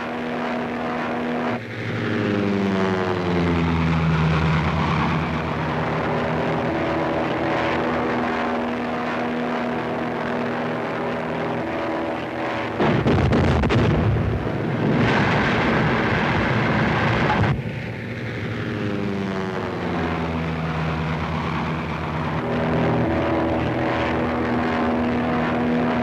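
Propeller airplane engine droning steadily, its pitch sliding down twice. About halfway through, the blast of a volcanic eruption, a loud explosive rumble lasting four to five seconds, covers it.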